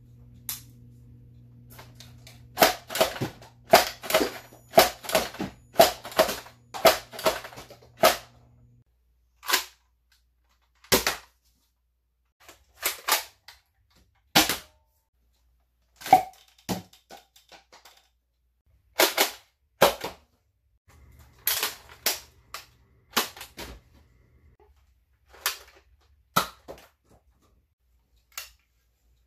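Toy foam-dart blasters fired one after another: a battery motor hums for several seconds while darts go off about twice a second, then single shots a second or two apart. Later a second motor hum comes with four quick shots, followed by a few last single shots.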